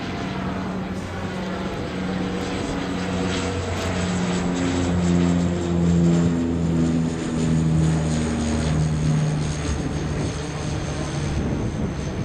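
De Havilland Canada DHC-8-102 Dash 8's twin Pratt & Whitney PW120A turboprops at climb power, passing close overhead just after takeoff. A propeller drone over a broad engine roar, loudest about halfway through, with its pitch falling as the plane goes past.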